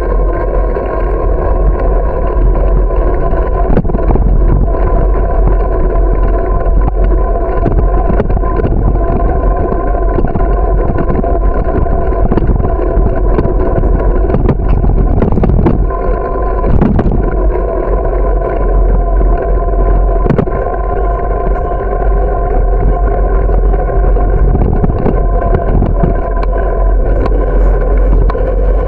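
Loud wind rumble on a bicycle-mounted camera's microphone while riding along a paved path, with a steady hum throughout and scattered short knocks from the bike jolting over bumps in the path.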